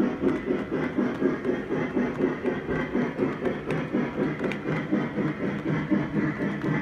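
O scale model train running, with a steady rhythmic pulse about five times a second.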